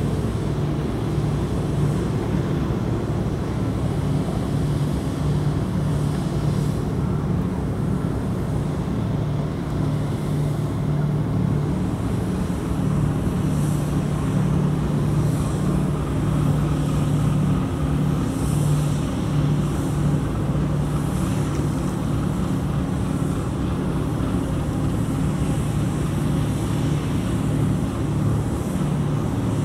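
A large engine droning steadily with a low hum that holds one pitch, over a wash of noise.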